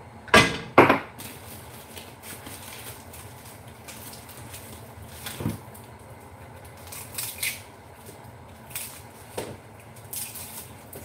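Kitchen clatter: two sharp knocks close together just after the start, then scattered lighter knocks and clinks of kitchenware being handled.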